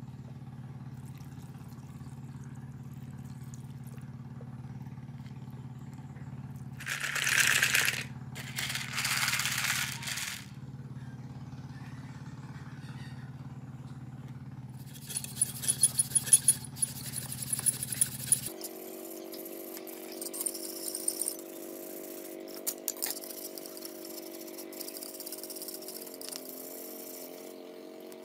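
Liquid poured from a bottle into a plastic tub of rusty bicycle parts in two hissing pours, followed by small metal parts clinking against each other. Later come scattered light clicks and scrapes over a steady hum.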